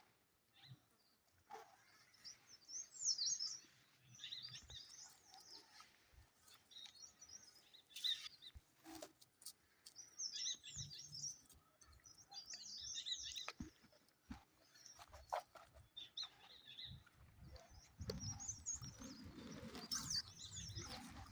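Birds chirping faintly in repeated clusters of short, high, quick chirps. There are a few scattered clicks, and a low rustling near the end.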